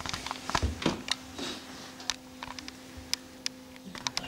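Irregular small clicks and taps, a few a second and louder in the first second, over a faint steady hum.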